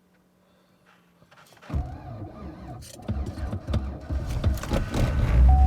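Pickup truck engine being cranked on a jump starter power bank in deep cold: uneven cranking and sputtering starts about two seconds in, and near the end the engine catches and settles into a steady run. A hard cold-weather start.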